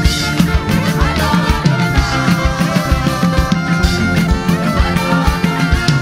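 Live church praise band playing loud, up-tempo music, with a drum kit keeping a steady beat under keyboard.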